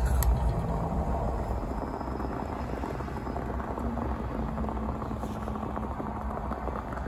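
Portable gas stove burner running steadily under an aluminium moka pot as the coffee brews, with a sharp metallic click of the pot's lid being shut just after the start.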